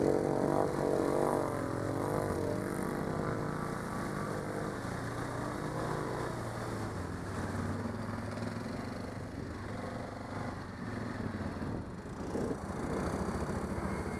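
ATV engine revving hard while driving through water, with water splashing. The engine pitch rises and falls over the first few seconds, then it runs steadier and lower.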